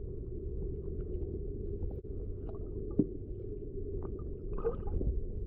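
Muffled underwater rumble from a camera held below the surface, steady and dull, with a few faint clicks and one sharp knock about three seconds in.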